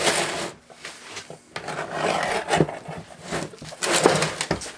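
Scraping, rubbing and rustling as the packaging of a case of surplus ammunition is pulled and worked open by hand, in irregular bursts with the loudest near the start and about four seconds in.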